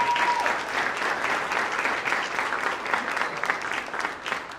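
Audience applauding, a steady clatter of many hands that begins to die away near the end. A brief high held tone sounds over the first half second.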